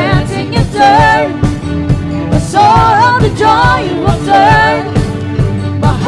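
Live worship music: a woman sings the lead melody into a microphone over a band, with a steady drumbeat on a drum kit under held low chords.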